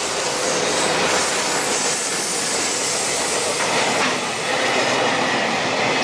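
EH500 electric freight locomotive passing close by, followed by a string of tank wagons: a loud, steady rumble and rattle of wheels on the rails.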